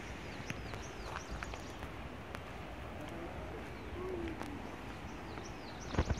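A bird calling in short, high chirps that drop in pitch, a few in quick succession near the start and again near the end, over a steady background hiss. A few sharp knocks come at the very end.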